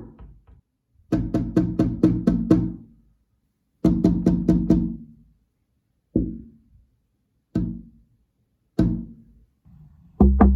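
Knocking on a glass window pane: a fast run of about seven knocks about a second in, another run of about five near four seconds, then three single knocks a second or more apart, and a new fast run starting near the end.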